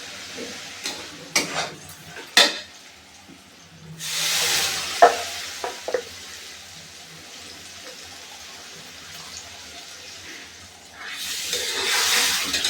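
Cooking at the stove: a spoon knocking and scraping against a pan several times, with two loud bursts of sizzling, one about four seconds in and one near the end, over a low steady frying hiss.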